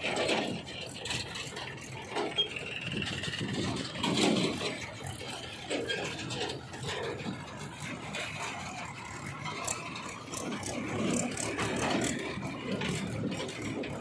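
Farm tractor engines running as the tractors drive past pulling their trailers, with the trailers rattling; the level rises and falls unevenly.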